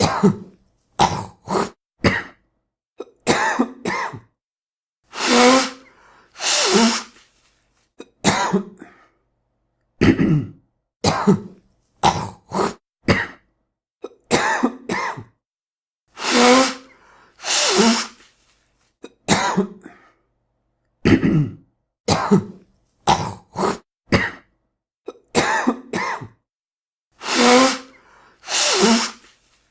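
A man coughing and clearing his throat, the same short recorded sequence played over and over. Clusters of quick single coughs and throat-clears alternate with a pair of longer, noisier blasts of about a second each, the cycle coming round about every eleven seconds.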